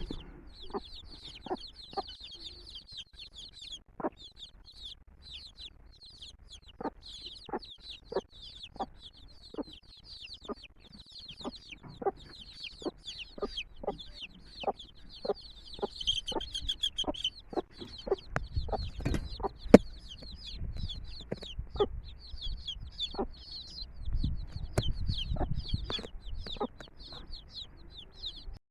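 A brood of chicks peeping constantly in high, rapid chirps, while a mother hen gives short, low clucks every second or so. A low rumble comes twice in the second half, and a single sharp click about twenty seconds in is the loudest moment.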